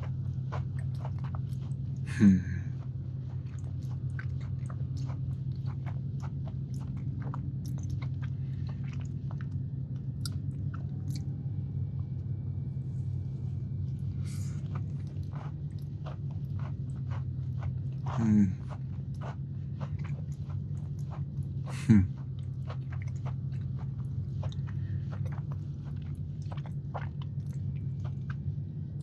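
Close-up chewing of a Crumbl semi-sweet chocolate chunk cookie: many small wet mouth clicks and smacks, over a steady low hum. Three brief louder sounds with a falling pitch stand out, one about two seconds in and two more in the last third.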